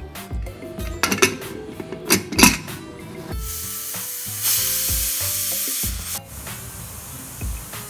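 A metal spoon stirring and clinking in an aluminium pressure cooker of mutton, water and spices, with a few sharp clinks, then the closed pressure cooker hissing steam steadily for about three seconds before the hiss stops.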